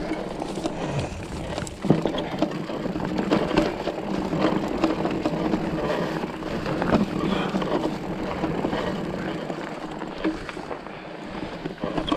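Mountain bike riding down a rough dirt singletrack: the tyres rumble over dirt and stones while the bike rattles and knocks over bumps, with a sharp knock about two seconds in.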